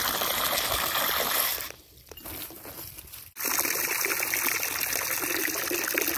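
Water from a garden hose pouring into a plastic bucket, a steady rushing splash. It breaks off for about a second and a half, a couple of seconds in, then starts again.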